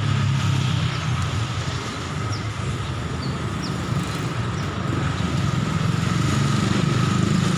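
Steady low rumble of motor vehicles running on a road, engine and traffic noise.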